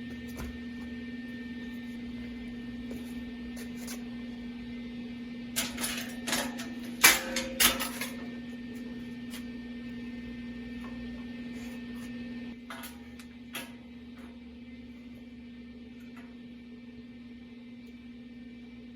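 A steady electrical hum, with a burst of clattering knocks about six to eight seconds in and a couple of lighter clicks a few seconds later.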